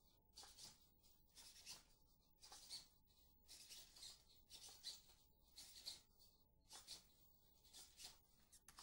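SpotMicro quadruped robot walking forward in a trotting gait: its servo motors whir and its feet tap the floor in short, faint bursts, about two a second, one with each step.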